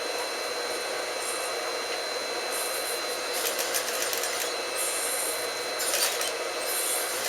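Sewing machine stitching a trouser waistband in several short runs, its needle clicking rapidly, over a steady hum.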